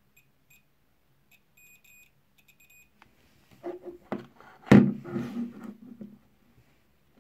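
DT33A digital multimeter's continuity buzzer giving short, broken beeps as the two probe tips touch and lose contact. After that comes handling noise: clicks, rustling and one sharp knock, the loudest sound, a little before the middle.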